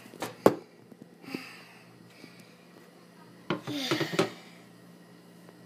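A few sharp knocks, the loudest about half a second in, then a short burst of clattering and rubbing a little after three and a half seconds.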